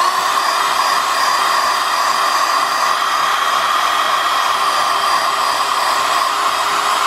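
Electric drill spinning a wire wheel brush against a rusty chrome steel wheel rim, scouring off rust. A steady motor whine with a hiss, holding one speed throughout.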